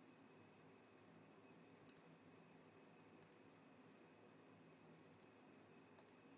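Four sharp double clicks of a computer mouse button at uneven intervals, over near-silent room tone.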